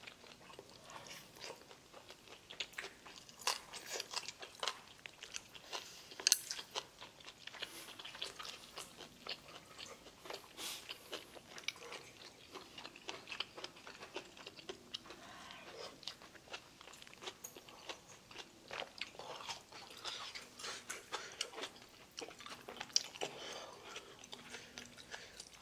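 Close-miked eating sounds: a person chewing and biting food, with small crunches and irregular clicks, starting on a mouthful of stir-fried pork belly with shishito peppers.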